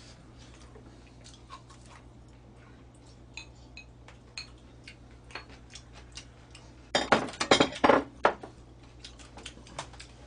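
Glass beer glass and bottles being handled while beer is poured: scattered small clinks, then a louder run of glass clinking and clatter for about a second, about seven seconds in.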